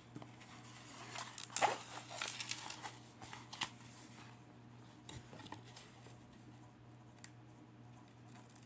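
Plastic cover film on a diamond painting canvas crinkling and rustling as it is handled and peeled back, with small clicks and taps; busiest in the first four seconds, then quieter.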